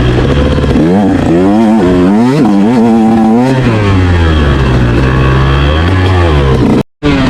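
Motorcycle engine revving up and down repeatedly, its pitch rising and falling every second or so. It cuts off abruptly just before the end.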